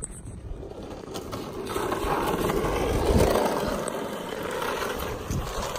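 Skateboard wheels rolling on asphalt, a steady gritty rumble that grows louder about two seconds in as the board picks up speed.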